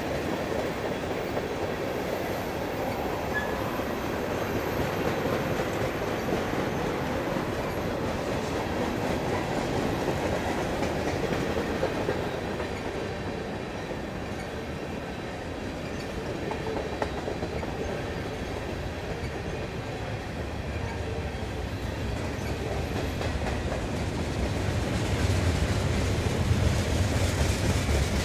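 Freight train cars rolling past: tank cars, covered hoppers and boxcars, their steel wheels running on the rails in a steady rumble that grows louder in the last few seconds.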